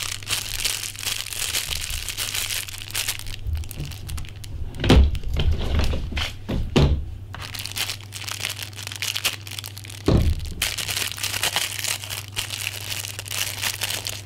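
Cellophane wrap crinkling as hands work it and slit it open with a knife, with several dull thumps, the loudest about five seconds in.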